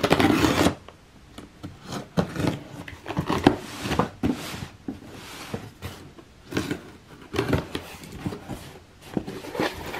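A box cutter slicing through packing tape on a cardboard box with a short rasp right at the start, followed by scattered taps, scrapes and rustles of the cardboard box being handled and its flaps worked open.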